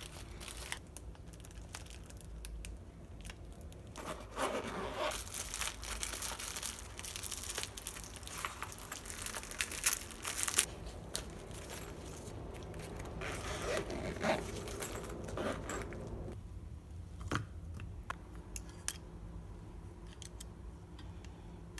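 Crinkling and tearing of a wrapper in two stretches of rustling, with a few sharp clicks near the end.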